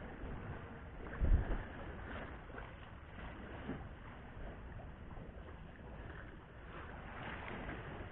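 Wind rumbling on the microphone in the open air by the sea, with one short low thump a little over a second in.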